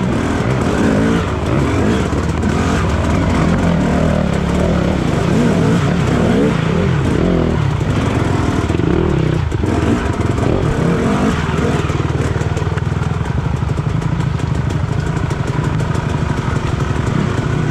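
Off-road trail motorcycle engine running under load, its pitch rising and falling with the throttle for the first half, then holding steadier from about twelve seconds in.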